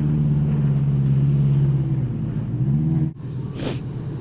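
Honda CB750 inline-four motorcycle engine running steadily, then revving up as the bike pulls away, with a brief sudden drop about three seconds in.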